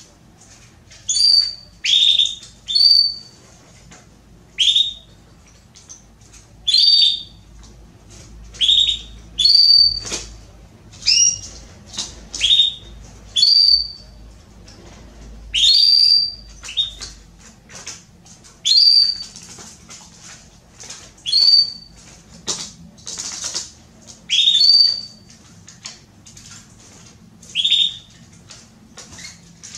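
Female domestic canary (Belgian canary) calling over and over, short quick downward-sliding chirps about one every second or two. These are the calls of a hen in breeding condition soliciting a male to mate.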